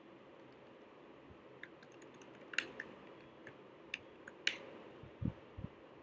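Computer keyboard typing: faint, irregular keystroke clicks, a few at a time, with a couple of heavier key presses near the end.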